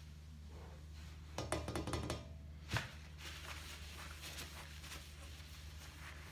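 Light knocks and clinks on a thick plexiglass sheet about a second and a half in, with a sharper single knock near three seconds. Then a paper towel rubs and rustles softly across the plexiglass surface as it is wiped clean.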